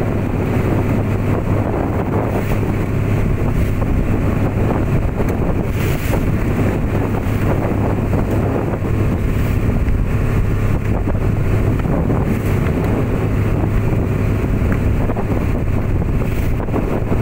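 Small boat's engine running with a steady low drone while under way, with wind buffeting the microphone throughout.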